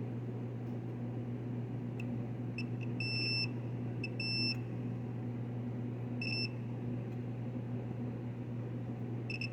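Digital multimeter on its continuity setting giving three short, high beeps, about 3, 4 and 6 seconds in, as the probes touch pairs of a refrigeration compressor's terminal pins. Each beep shows continuity through the windings between those pins. A steady low hum sounds underneath.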